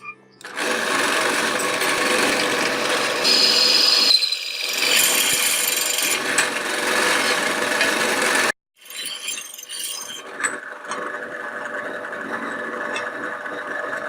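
A power tool working on metal, with a steady motor whine over a rough grinding noise. It stops abruptly about 8.5 s in and starts again a moment later, a little quieter.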